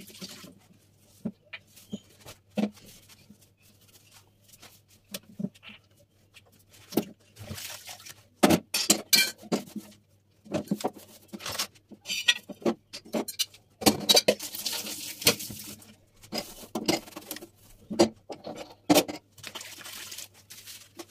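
Dishes and a gas stove's metal burner grates being handled: irregular knocks, clinks and scrapes, busiest in a few longer stretches of clattering and scraping.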